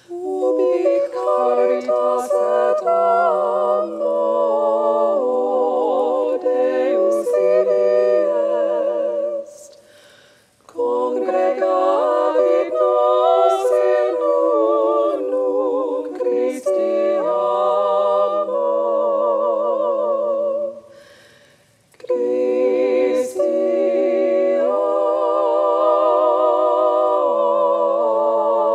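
Unaccompanied voices singing a slow hymn in harmony, with long held notes and vibrato. The singing comes in three phrases, with short breaks about ten and twenty-one seconds in.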